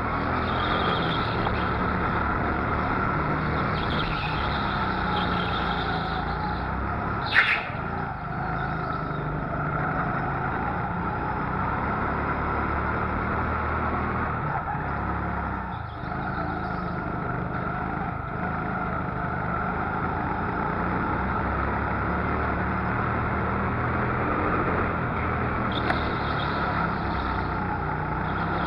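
Go-kart engine running hard on board the kart, its pitch rising and falling with the throttle, with one sharp knock about seven seconds in.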